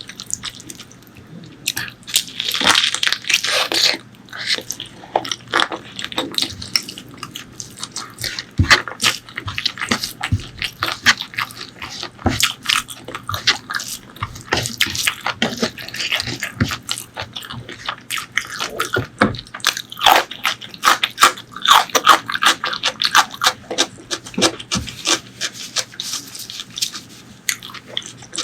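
Close-miked eating sounds of spicy pork leg curry and white rice: wet chewing and mouth clicks in a rapid, uneven run, with louder bursts of chewing about two seconds in and again around twenty seconds in.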